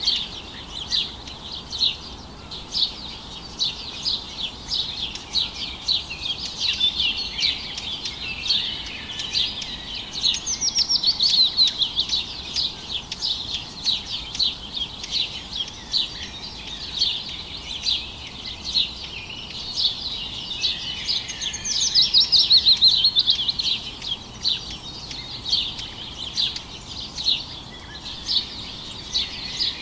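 Many small birds chirping steadily in a dense chorus, with quick falling trills about ten seconds in and again a little after twenty seconds.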